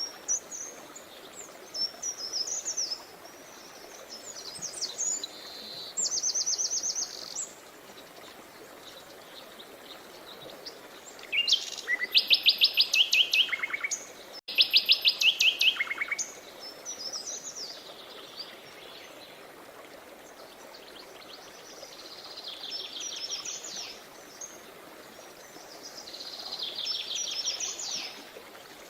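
Songbirds singing in a series of high, quick phrases, some of them rapid trills, loudest in the middle, over a faint steady rush of running river water.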